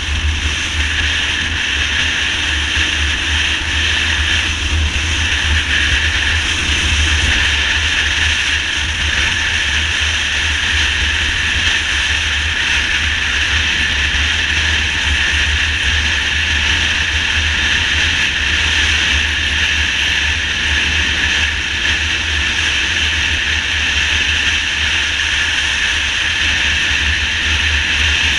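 Motorcycle riding at highway speed: a steady rush of wind buffeting the microphone, with a low, fluttering rumble over the engine and road noise.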